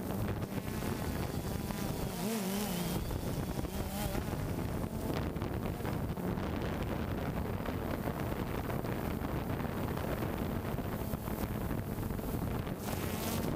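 DJI Phantom 2 quadcopter's motors and propellers humming steadily, heard from the camera slung beneath it, with wind buffeting the microphone.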